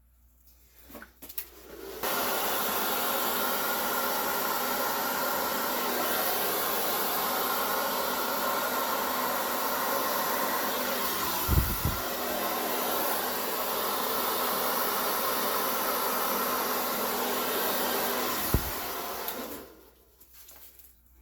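Hand-held electric air blower running steadily, blowing wet acrylic paint across the canvas to make the bloom; it switches on about two seconds in and winds down near the end, with a couple of low bumps in between.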